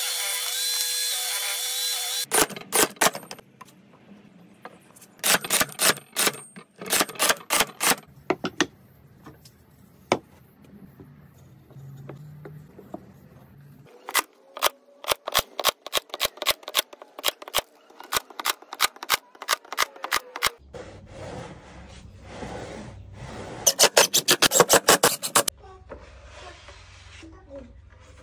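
A table saw runs and cuts through a board for about two seconds, then a cordless nailer fires again and again into pine slats in quick runs of sharp shots, about two a second at times.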